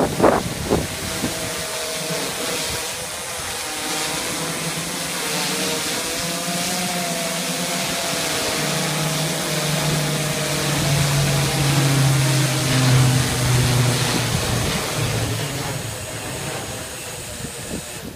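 Large multirotor drone's electric rotors whirring steadily in a low hover, the pitch wavering slightly. The sound grows quieter over the last couple of seconds as the drone comes down and lands.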